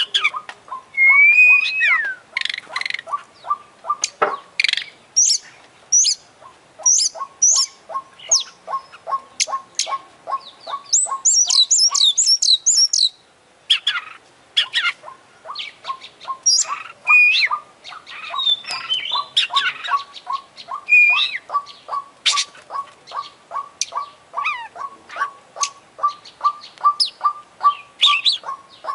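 Oriental magpie-robin (kacer) singing a loud, varied song of whistles, chirps and harsh notes, packed with mimicked calls of other birds, with a fast high trill about halfway through. Beneath it a steady series of short ticks, about three a second, keeps going, pausing twice for a few seconds.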